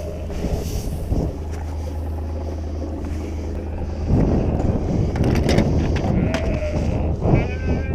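Sheep bleating, with a wavering call near the end, over the steady low hum of an idling side-by-side utility vehicle engine. Rustling and knocking grow louder about halfway through.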